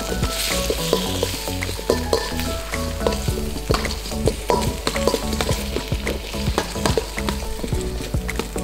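Chicken and vegetables sizzling in a stainless steel mixing bowl used as a wok, tossed with a metal spoon that clicks and scrapes against the bowl many times.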